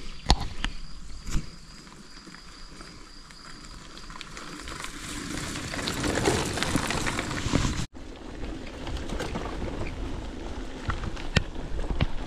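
Bicycle riding noise: rolling tyres and a rushing noise with scattered clicks and knocks from the bike. The rushing swells to its loudest about six to seven seconds in, cuts off abruptly just before eight seconds, and resumes with more rattles.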